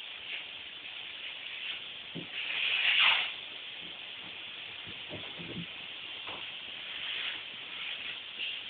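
Steady hissing rush of a vacuum cleaner running in the background, with one louder hiss lasting under a second about three seconds in and a few soft bumps.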